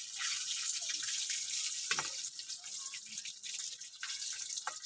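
Chicken pieces frying in hot oil: a steady high sizzle with scattered crackles and pops.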